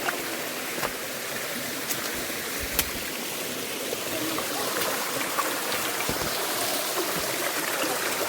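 Steady rush of a flowing stream or small waterfall, with a few sharp clicks.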